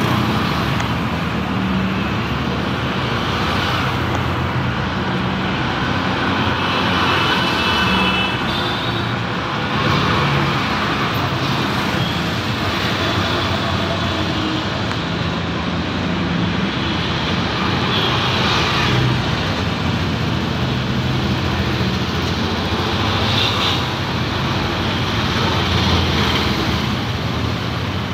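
Steady road traffic, with motorcycles, scooters and auto-rickshaws running past close by. Brief high-pitched tones sound now and then.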